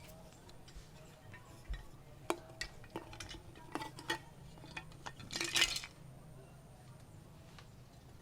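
Hard plastic toys handled and knocked together, a string of separate light clicks and clinks, with a short louder rattling scrape about five and a half seconds in.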